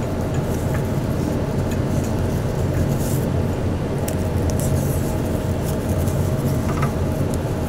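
Steady low background hum, with a few faint soft rustles and ticks of a fabric ribbon being tied into a bow.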